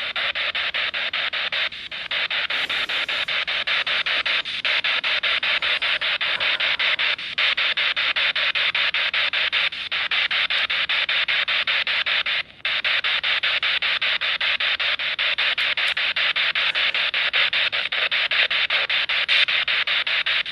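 Steady static hiss with a fast, fine crackle running through it, broken by a few brief dropouts, the clearest about twelve seconds in.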